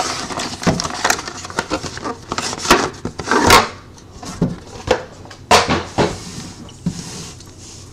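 Packaging of a trading-card hobby box being handled: the box slid out of its outer case and set down on a table, giving a series of knocks and short scrapes, the loudest about three and a half seconds in.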